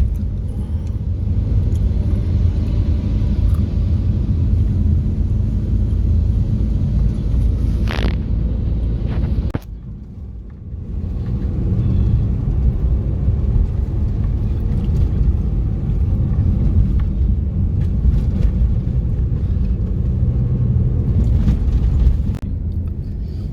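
Car travelling on a hilly road, heard from inside the cabin: a steady low rumble of engine and road noise, with a short quieter dip about ten seconds in.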